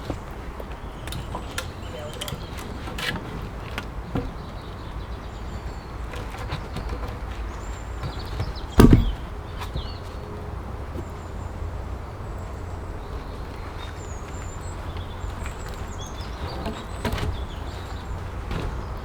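Birds chirping on and off over a steady low rumble, with a few scattered knocks and one loud thud about nine seconds in, the sounds of log work.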